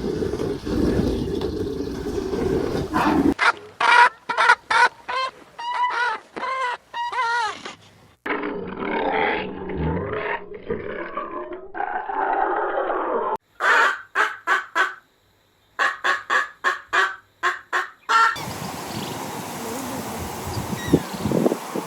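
Poultry calling in several short clips cut together, with runs of short repeated calls.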